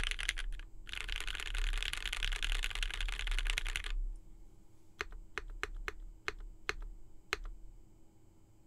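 Fast typing on a Mode65 mechanical keyboard with lubed Marshmallow switches, a POM plate and GMK keycaps. A dense run of keystrokes breaks briefly about half a second in and stops at about four seconds. About seven single key presses follow, spaced out over the next two and a half seconds.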